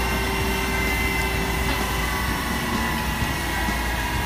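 Airport apron noise around a parked jet airliner and a passenger stair truck: a steady whine with several high tones over a continuous low rumble.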